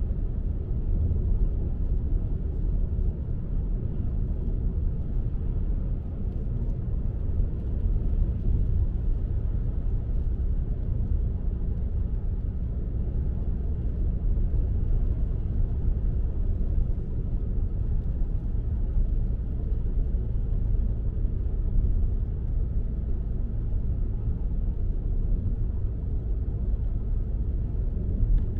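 A car driving along, heard as a steady low road rumble with no breaks or sudden events.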